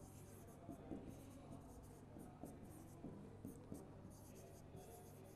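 Faint scratching and light tapping of a stylus writing on an interactive board screen, in short strokes, over a low steady hum.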